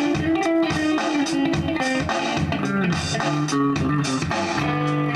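Hollow-body electric guitar played through an effects pedal, a continuous jam of picked notes over low sustained notes.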